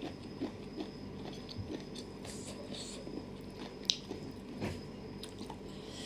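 A person chewing a mouthful of spicy papaya salad with glass noodles and seafood: soft, wet crunching and mouth sounds in scattered small bursts, with one sharper click about four seconds in.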